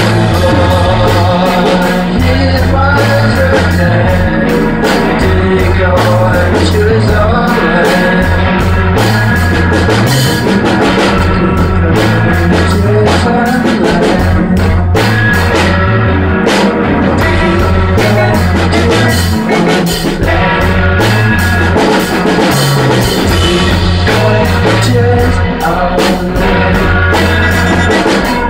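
Loud improvised rock from a band playing live in a rehearsal room: drums, guitar and a shifting low bass line, with singing re-amped through a Leslie rotating-speaker cabinet. The vocals, picked up in the room, blow out the drum sound a bit.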